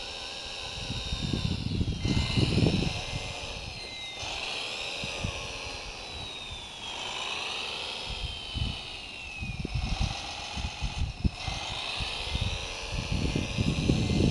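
Electric motors of a 1/14-scale RC Komatsu WA470-6 wheel loader whining, the pitch rising and falling as it drives and works its bucket. Gusts of wind buffet the microphone, loudest about two seconds in and near the end.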